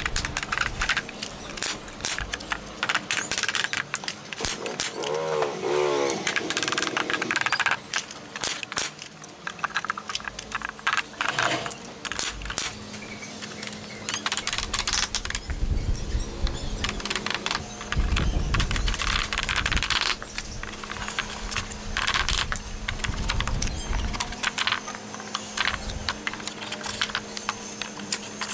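Wooden pallet slats being knocked into place with a mallet and handled, a run of irregular wooden knocks and clatters. A brief wavering animal call sounds about five seconds in.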